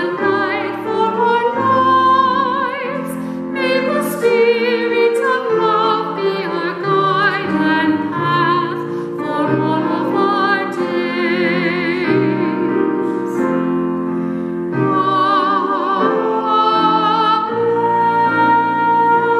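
A woman sings a blessing solo in a full, classical style with marked vibrato, over a steady instrumental accompaniment.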